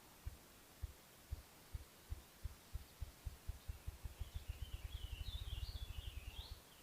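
Ruffed grouse drumming: low thumps that start about two a second, speed up steadily and blur into a fast flutter, then stop near the end. A small songbird sings faintly over the second half.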